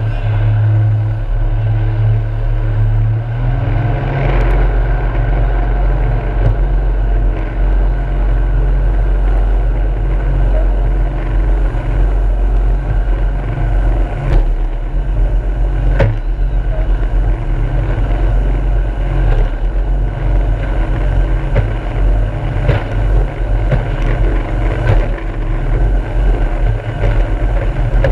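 Jet boat engine running hard at speed with a steady drone. Its pitch steps up a little about three and a half seconds in.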